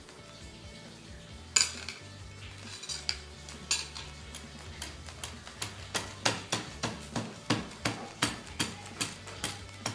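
Thin rods and small beads of a handmade sunburst mirror clinking as the mirror is pressed down into silicone. There is one sharp clink about one and a half seconds in, then a run of light, evenly spaced clinks, about three a second, over the second half.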